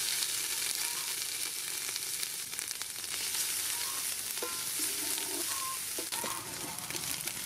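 Pounded yellow herb paste frying in hot soybean oil in an aluminium pot, sizzling steadily as it is stirred with a wooden ladle.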